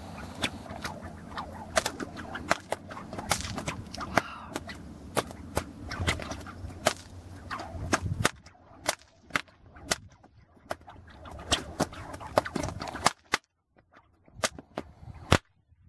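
Twin cow whips, one in each hand, cracked in a steady run of sharp cracks about twice a second. Wind noise on the microphone under the cracks in the first half, dropping away after about eight seconds.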